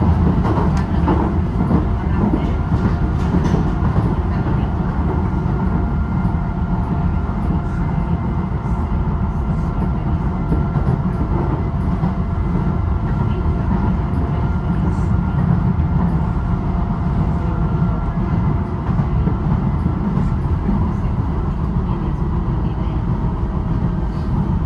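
Docklands Light Railway train running between stations, heard from inside the car: a very loud, steady rumble of wheels and running gear with a faint steady whine over it.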